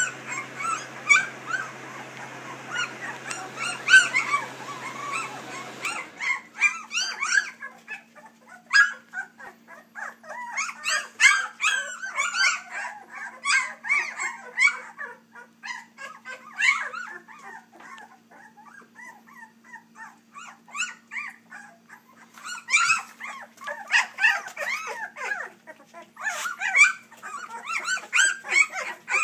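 A litter of three-week-old Labrador puppies crying, many short high-pitched calls overlapping, with a quieter lull midway before they pick up again near the end.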